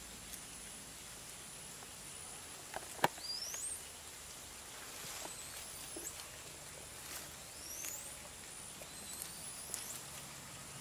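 Quiet forest ambience: a steady high-pitched whine, soft rustling and snapping of leafy stems as a Zanzibar red colobus pulls at leaves while feeding, with one sharp snap about three seconds in. Two rising whistles, about three and seven seconds in.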